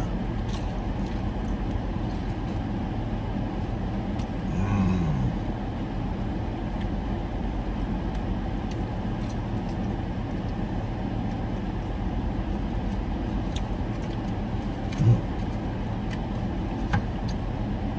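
Steady hum of a car running, heard from inside the cabin, with faint chewing as a man eats chicken wings. A short voiced "mmm" comes about five seconds in, and small clicks come near the end.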